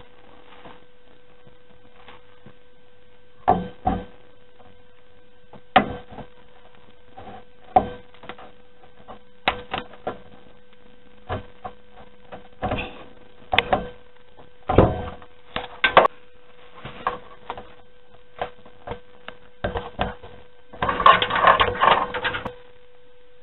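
Scattered clicks, knocks and rustles of hands handling computer parts and cables inside a PC case, over a steady hum. Near the end there is a denser burst of rubbing and clatter lasting about a second and a half.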